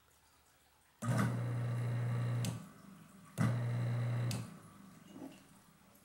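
Kitchen-sink garbage disposal switched on twice, each time running with a steady hum for a second or so before stopping. It sounds much better: running freely now that the jam of small rocks has been cleared.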